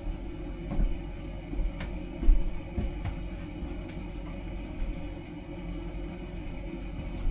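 Water running into a large jetted bathtub: a steady low rush, with a few faint knocks along the way. The tub is being filled to test a drain that had been leaking.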